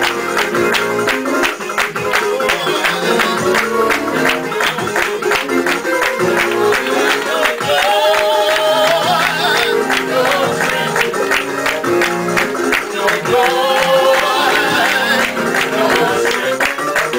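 Fast praise music with a steady quick beat of about four strokes a second. A wavering held note rises above the music twice.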